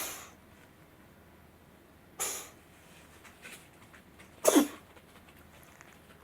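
Cat coughing in three short coughs about two seconds apart, the last and loudest a double cough; the cat seems to have choked on the dry kibble it had just eaten.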